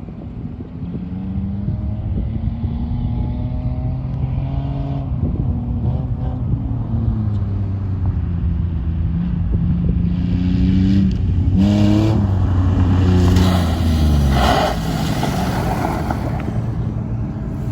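Ford F-150 pickup engine running under way, its pitch climbing as it accelerates and dropping back several times at the shifts. A broad rushing noise swells over it in the last few seconds.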